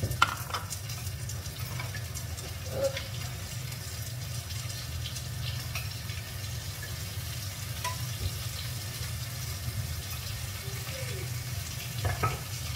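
Whole spices frying in hot oil in a pan, a steady light sizzle, with a few light clicks.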